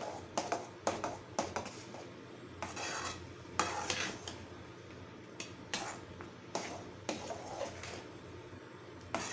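A metal ladle stirring thick, wet rava upma (semolina) in an aluminium pan, with irregular clinks and knocks of the ladle against the pan and a couple of longer scraping strokes.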